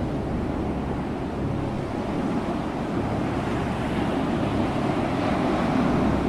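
Ocean surf: a continuous rush of waves, swelling a little toward the end.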